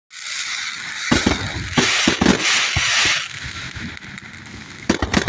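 Fireworks going off: a loud steady hiss with scattered crackles, the hiss growing louder in the middle, then a rapid run of sharp pops near the end.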